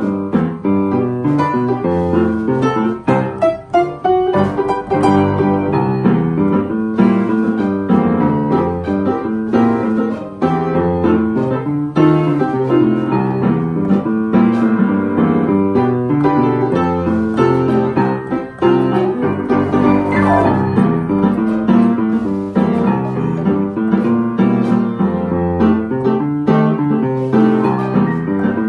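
Upright piano played with both hands: a continuous melody over chords.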